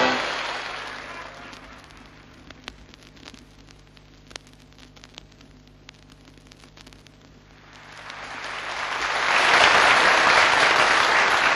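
Audience applause fading out, then a few seconds of quiet record-surface crackle with scattered clicks, then applause fading back in near the end.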